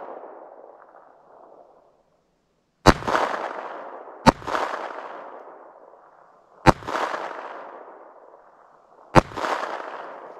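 Four shots from a .22 LR pocket pistol, fired one to two and a half seconds apart, each followed by an echo that dies away over a second or two.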